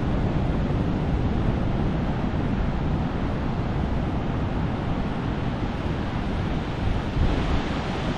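Ocean surf washing onto a beach, a steady rushing noise, mixed with wind noise on the microphone.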